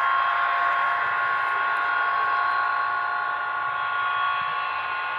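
Avro Vulcan B.2 jet bomber's Rolls-Royce Olympus turbojets running steadily on the ground: a high whine of several steady tones over a rushing noise.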